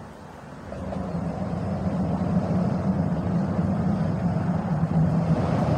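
A motor vehicle's engine rumbling, growing louder about a second in and then holding steady.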